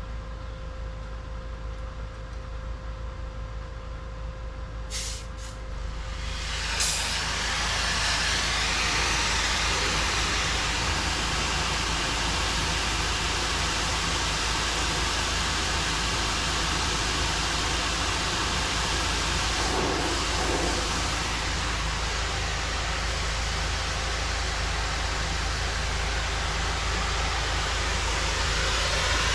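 A pressure washer's engine running steadily, then about seven seconds in the spray gun is opened and a loud, steady hiss of high-pressure water spray sets in over the engine and continues.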